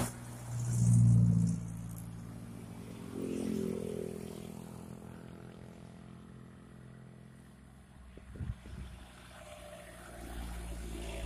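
Road traffic passing on an uphill bend: an old sedan's engine runs loud as it passes about a second in, a second engine rises in pitch around three to four seconds, and a truck engine's low rumble builds near the end.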